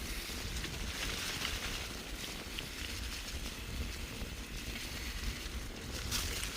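Steady rush of a bicycle riding at speed: wind rumbling on the microphone together with the hiss of the tyres rolling on the road.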